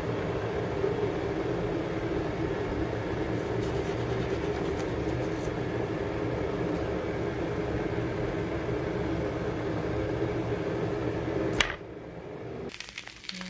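Steady humming of a kitchen appliance's fan motor, which stops abruptly with a click near the end.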